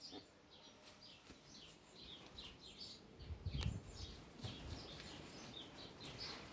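Faint chirping of small birds, many short calls, with a low thump about three and a half seconds in.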